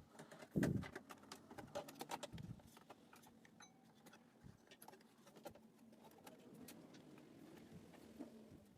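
Faint clicks and light knocks of an NVIDIA graphics card being handled and fitted into a desktop PC's expansion slot and case, with a dull thump about half a second in.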